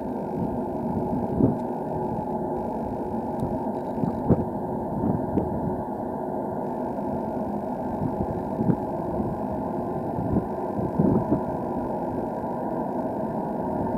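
Steady low rumble of an underground railway station and tunnel, with a few brief soft thumps.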